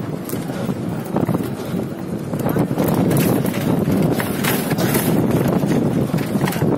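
People talking, with wind noise on the microphone.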